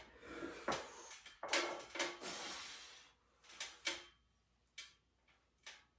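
A person doing weighted dips on a dip station: a run of short breathy puffs mixed with knocks and rattles from the weight bag and the frame, loudest about one and a half seconds in and thinning out in the second half.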